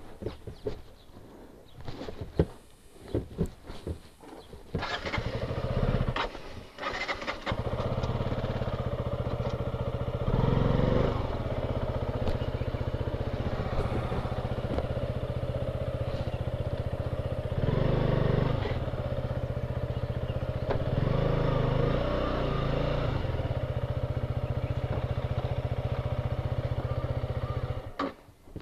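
KTM Duke 125's single-cylinder four-stroke engine is started about five seconds in, after a few clicks and knocks, and then idles steadily with a few short throttle blips. It stops abruptly near the end.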